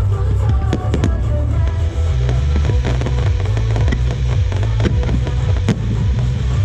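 Aerial fireworks going off, a string of sharp bangs and crackles at irregular intervals, the strongest near the end, over loud music with a heavy bass.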